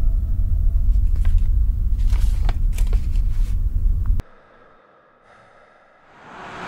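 A deep, steady rumble with a few faint scrapes and clicks over it, cutting off suddenly about four seconds in. After a short quiet stretch, a hiss swells up near the end.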